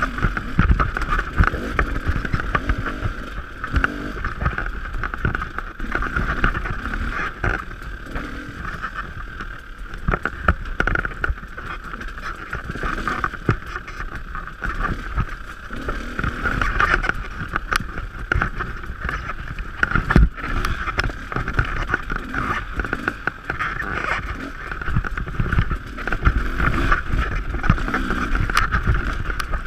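Dirt bike engine running under changing throttle while ridden over rough singletrack, with frequent knocks and rattles from the bumps.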